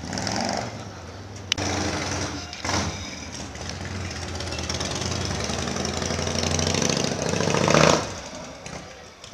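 Motorcycle engine running with a low pulsing note, growing louder and peaking near the end before dropping away sharply. A short sharp click about a second and a half in.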